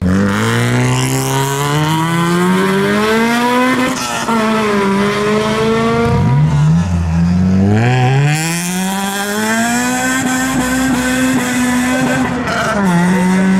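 Honda Civic's four-cylinder engine revved hard: the pitch climbs for about four seconds, drops twice, then climbs again and holds high before falling about a second before the end. Tyres squeal through the high-revving stretch in the second half.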